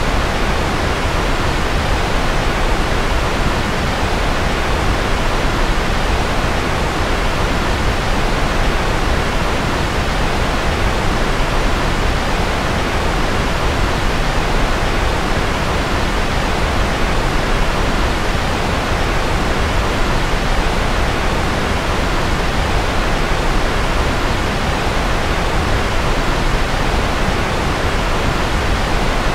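Steady electronic white noise for sleep: an even, unchanging hiss, fuller in the lows and mids and thinning out in the highs, like pink noise.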